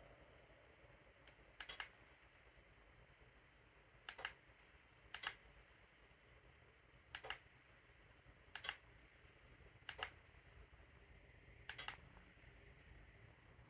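About seven short, sharp clicks at uneven intervals over a quiet room hiss, some of them in quick pairs.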